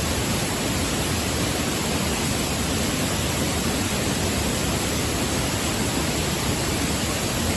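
Mountain valley stream running: a steady rush of water.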